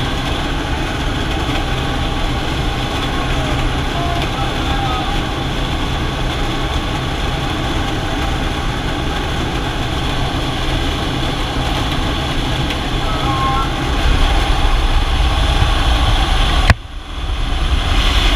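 Steady loud drone of a light aircraft's engine and propeller, mixed with wind rushing past the open jump door, heard from inside the cabin. It grows louder toward the end as jumpers move out into the door, and the level drops sharply for a moment shortly before the end.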